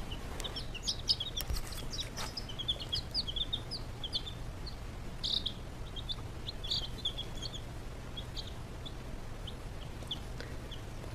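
Baby chicks peeping: a continuous stream of short, high peeps from several birds, over a low steady hum.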